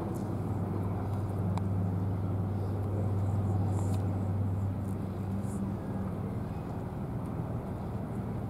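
An engine running steadily: a low, even hum that swells slightly a few seconds in.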